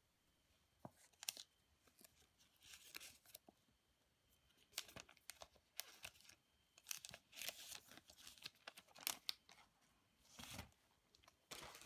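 Faint crinkling and tearing of the thin clear plastic film being peeled off a smartphone box, in short irregular bouts of rustling.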